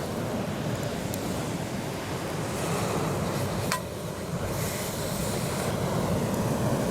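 Sea waves washing onto a beach: a steady rush of surf, with wind buffeting the microphone. A brief click about four seconds in.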